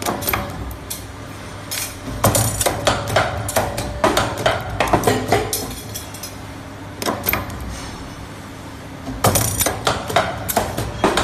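Automatic metal strip clamp punching and bending machine working: groups of rapid metallic clanks and clicks from its tooling every couple of seconds, with a steady low hum between them.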